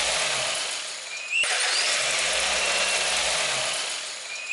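Toyota Corolla four-cylinder twin-cam engine running with its camshaft cover off, the exposed camshafts and valve gear turning. The level dips and jumps back about a second and a half in, and the sound cuts off abruptly at the end.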